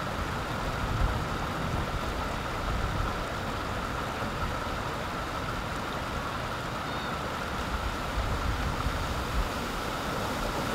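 Floodwater rushing down a street after a heavy storm: a steady, even rushing noise.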